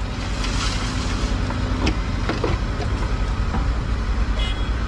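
Cat 313GC excavator's diesel engine running steadily as its bucket pours a load of soil into a dump truck's bed. A few sharp knocks come about two seconds in.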